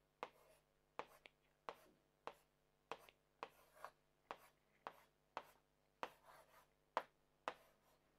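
Faint taps and scrapes of a marker pen on a whiteboard as letters are written, about two strokes a second.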